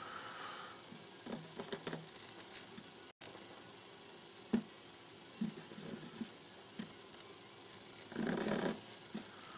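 Faint handling sounds of thread being wound by hand around a fishing rod guide's foot: soft scattered rustles, a single small click about four and a half seconds in, and a brief louder rustle near the end.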